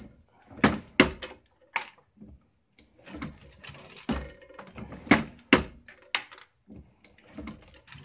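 Sharp metallic clicks and clinks at irregular intervals, about eight of them, from working lead bullet cores through a core-sizing swage die and handling them for weighing.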